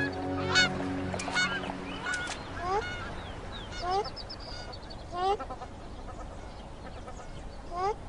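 Large birds giving repeated honk-like calls, several together at first, then single rising calls every second or so. Background music fades out in the first second and a half.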